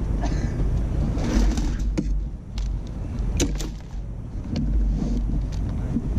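Wind buffeting the microphone as a steady low rumble, with a few sharp clicks and knocks of fishing gear being handled, the clearest about two seconds and three and a half seconds in.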